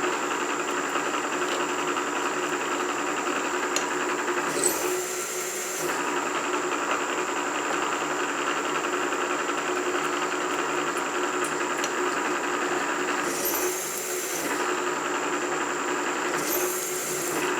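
Milling machine spindle running steadily as a counterbore cuts a pocket for 1/4-inch socket head cap screws into a stainless steel plate. A steady hum with a constant high whine, easing briefly about three times.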